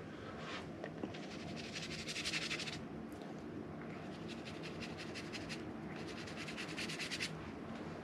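Paintbrush scrubbing and dabbing thick acrylic paint onto the painting surface, in three spells of soft, scratchy strokes, each a second or two long.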